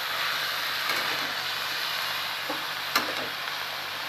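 Chopped cauliflower, potato and capsicum sizzling in oil in a steel kadai while a metal spatula stirs them: a steady hiss with a few sharp clicks of the spatula against the pan, the sharpest about three seconds in.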